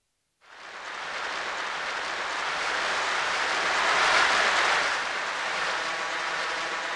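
Audience applause fading in after a short silence and swelling, loudest about four seconds in, then holding steady.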